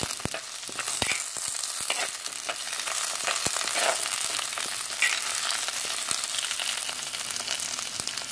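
Chopped shallots, green chillies and curry leaves sizzling in oil in a clay chatti as they are stirred while sautéing until soft: a steady frying hiss with scattered sharp clicks.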